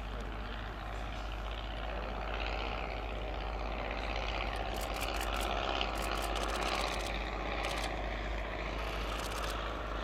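Taylorcraft Auster Mk5 light aircraft on final approach to land, its single piston engine and propeller running steadily and growing a little louder as it comes closer.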